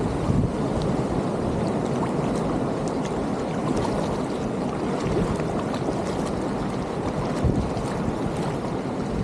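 Wind on the microphone and water lapping against a kayak's hull on the sea, a steady rushing noise with small scattered splashes.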